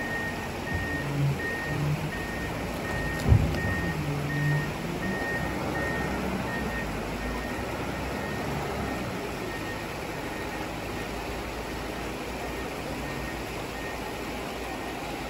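Komatsu WA380 wheel loader working rockfall debris: its diesel engine runs and revs under load while rock scrapes and knocks in the bucket, with one sharp loud knock of rock about three seconds in. A back-up alarm beeps steadily through the first half, then fades.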